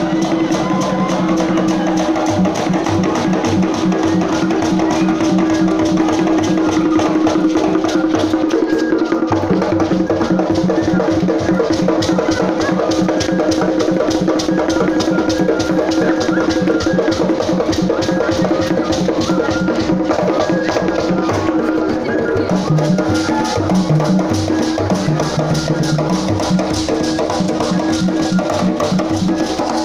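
Imbalu dance music of the Bagisu: drums and dense, rapid rattling percussion in a steady, driving rhythm, over a continuous held note.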